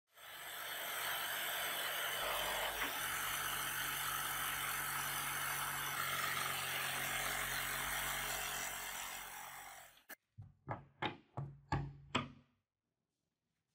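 Electric jigsaw cutting through a clamped wooden board, running steadily for about ten seconds before it stops. A quick series of sharp knocks follows as the cut wooden pieces are handled and knock together.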